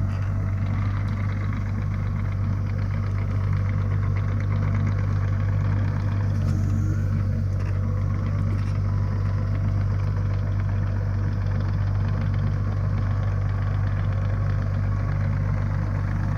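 Cat 305.5E mini excavator's diesel engine running at a steady speed, a constant low hum.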